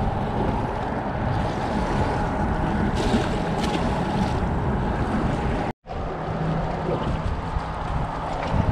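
Wind buffeting the microphone over water lapping against shoreline rocks, with a short splash about three seconds in as a small snook is dropped back into the water.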